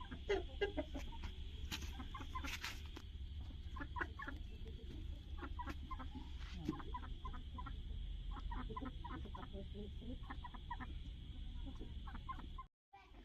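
A flock of Aseel chickens clucking, many short calls overlapping, over a steady high-pitched hum and a low rumble. The sound cuts out for a moment near the end.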